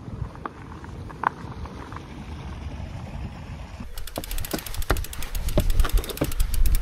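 Low wind and tyre rumble from a moving mountain bike. About four seconds in, a rapid, even ticking starts: the Salsa Bucksaw fat bike's rear freehub clicking as it coasts.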